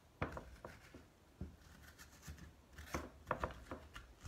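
Spoon scraping out the seeds and stringy pulp from inside a halved winter squash, as a series of short, irregular scrapes.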